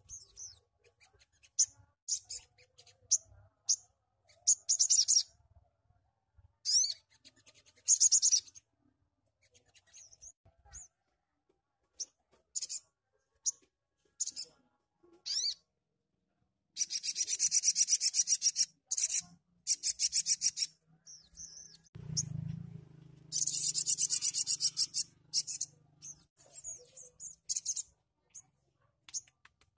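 Sogon (sogok ontong) singing in rapid-fire bursts: short, very high, raspy trills and sharp chirps, with longer fast buzzing trills in the second half. A brief low rumble comes about two-thirds of the way through.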